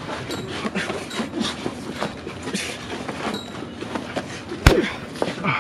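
Two men struggling: scuffling and clothing rustle with grunts and heavy breathing. One sharp knock comes about three-quarters of the way through.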